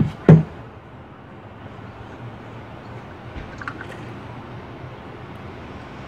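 A single sharp knock just after the start as a wrench breaks loose the 10 mm bowl nut on a small-engine carburetor, then a few faint clicks of metal tool handling over steady low background noise.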